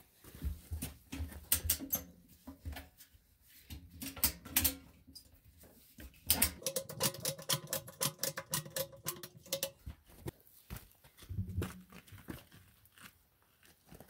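A cargo ratchet strap being cranked, its ratchet clicking in quick runs, as it draws a steel beadlock ring in on itself inside a truck tire. About six seconds in, a drawn-out squeal lasts about three seconds, the ring rubbing against the tire rubber.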